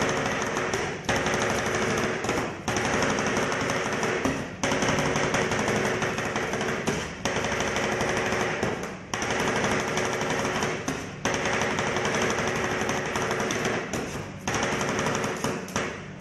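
Two flat steel spatulas chopping ice cream mix rapidly against a frozen steel cold plate, the stage of rolled ice cream making where the mix is worked until it freezes. It is a fast, continuous metallic clatter with brief breaks every couple of seconds.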